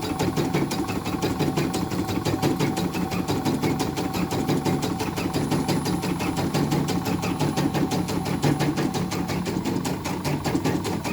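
Hakatori computerized embroidery machine stitching at its slow speed on a test run: a fast, even clatter of needle strokes.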